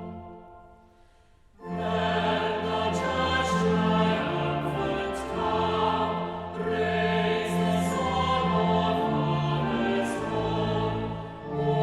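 Choir singing with instrumental accompaniment, coming in about a second and a half in after the previous music fades to a short near-silent gap.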